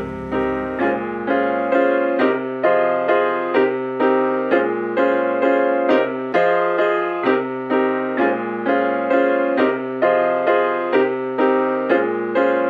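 Instrumental music: a piano or electric piano playing a steady, evenly paced pattern of chords, about two a second.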